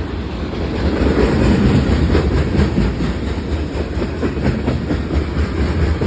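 Freight train cars rolling past at close range: a steady rumble with the quick clickety-clack of wheels over rail joints.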